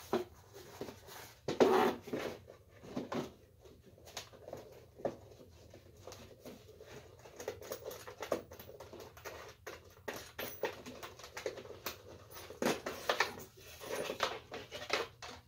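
Irregular knocks, clicks and rustles of an old animated lamp's embossed-cardboard case and its light fixture being handled and taken apart on a workbench, the loudest knock about two seconds in.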